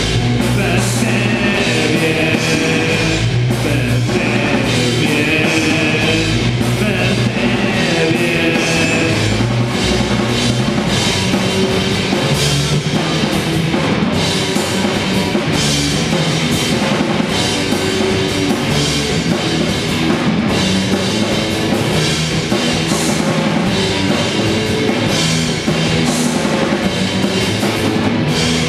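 Rock band playing live, with drum kit and electric guitar, loud and continuous.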